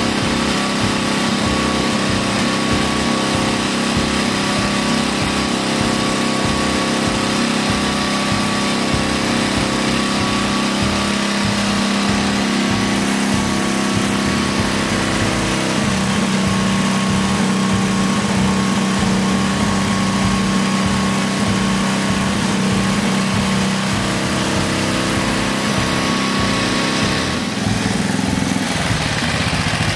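Vintage Briggs & Stratton small engine on a concrete power trowel running steadily, its pitch shifting slightly about halfway through. It runs without turning the trowel's finishing blades.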